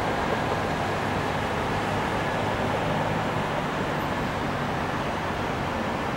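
IAE V2500 turbofan engines of an Airbus A320 running at takeoff power, heard from afar as a steady rushing rumble.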